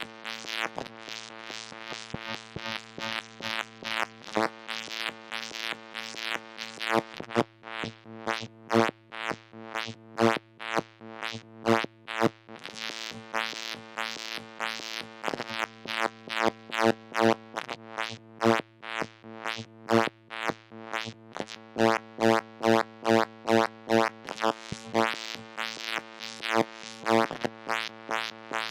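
Moog Mother-32 analog synthesizer holding one low note while its filter is swept open and shut in uneven, chaotic pulses and swells, driven by a Comdyna GP-6 analog computer working the Lorenz equations. The pulses come fast and tightly packed for stretches, then loosen into slower, longer swells.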